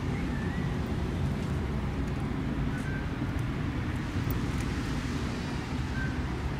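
Steady low outdoor rumble with a few faint, short chirps.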